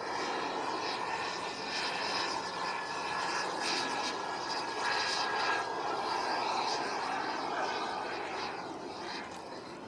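Radio-controlled model jet flying past: the engine's steady rush and faint whine grow louder toward the middle, then fade away near the end.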